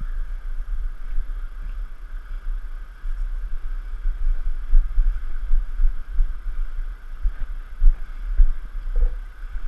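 Rushing river water as a steady hiss, under an uneven low rumble and repeated dull bumps from a canoe hull being pulled over bare rock.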